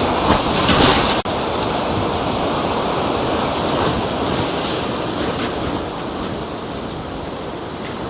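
Storm wind and rain: a steady rushing noise, louder in the first second, with a brief dropout just over a second in.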